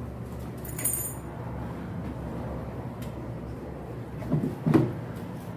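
Washing machine tub parts being handled and fitted together: a short clack with a brief high ring about a second in, then two knocks close together about four and a half seconds in, the second the loudest, over a steady low hum.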